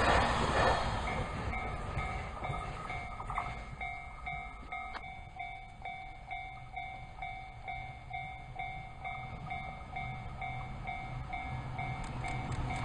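Rushing noise of a passing electric train fading away, then a railway level-crossing bell ringing in a steady, even repeating ding. Near the end the rumble of a second electric train grows as it approaches.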